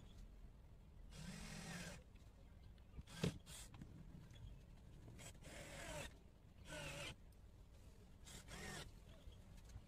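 Cordless drill-driver running in several short bursts, its motor whine bending in pitch under load as it drives screws through aluminium edge trim. One sharp knock about three seconds in is the loudest sound.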